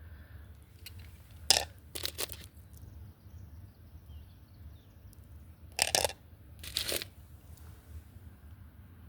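Tumbled rocks clattering and scraping against each other as they are handled, in four short bursts, two close together near the start and two a little past the middle. A low steady hum runs underneath.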